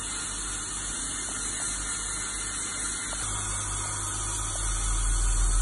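Dental handpiece grinding leftover bracket adhesive off the teeth after the braces have been removed, a steady high-pitched hiss. A low hum joins about three seconds in and grows louder near the end.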